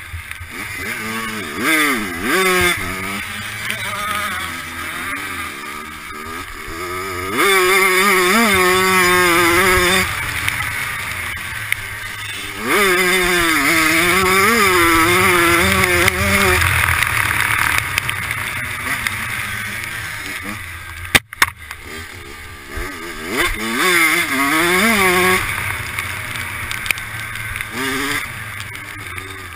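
Dirt bike engine, with a freshly rebuilt top end, revving hard. The pitch repeatedly rises and falls as the rider works the throttle and shifts, and the sound cuts out sharply for a moment about two-thirds of the way through.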